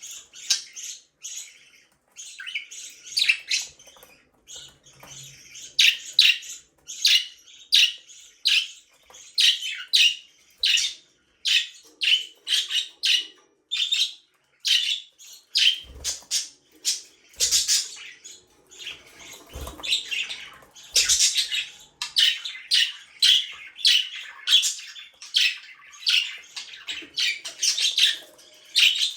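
Budgerigar chirping in a busy, continuous run of short, high chirps and chatter. A few soft low knocks come in the middle.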